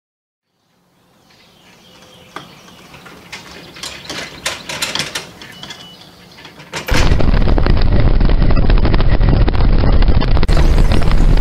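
Loud, steady rush of wind and road noise as a boat is towed on its trailer behind a pickup truck, starting suddenly about seven seconds in. Before it come faint, scattered clicks and knocks.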